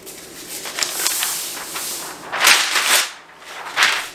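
Pink butcher paper being unrolled off its roll across a counter and handled, rustling and crinkling, with louder swishes about two and a half seconds in and again just before the end.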